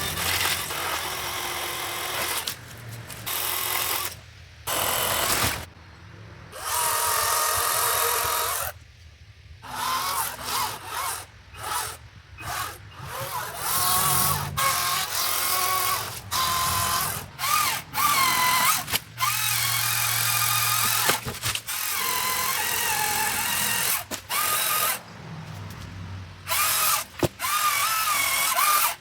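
Powered pole saw running and cutting tree branches, its motor pitch rising and falling under load. It stops and starts abruptly many times.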